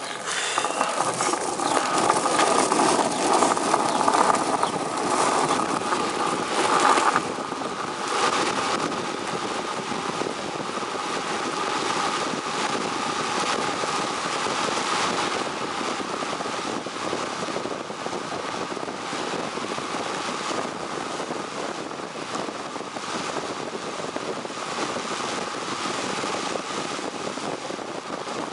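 Longboard wheels rolling fast on asphalt, with wind rushing over the microphone, a steady roar with small clicks from the road surface. It is loudest for the first seven or eight seconds, then settles a little quieter.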